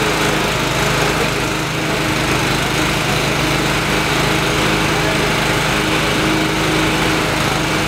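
Viking electric garden shredder running steadily, chopping cannabis plants fed into its hopper, with a small petrol generator running alongside.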